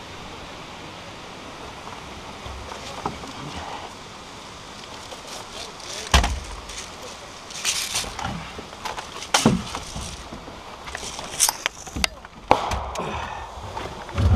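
A steady hiss, then from about six seconds in a series of sharp, irregular knocks and clacks, several seconds apart.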